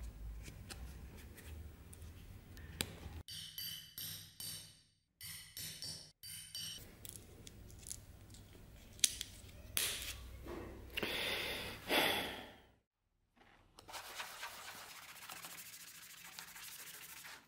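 Hand work on a leather knife sheath in short cut-together pieces: leather rubbing and scraping, a few sharp taps, and steady rubbing of the leather near the end.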